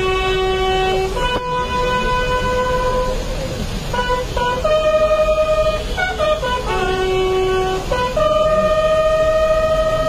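Bugle sounding a slow funeral-honours call: long held notes stepping up and down among the bugle's few natural notes, each lasting a second or two, the last one the longest.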